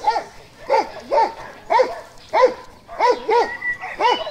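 Dog barking repeatedly, about two sharp barks a second.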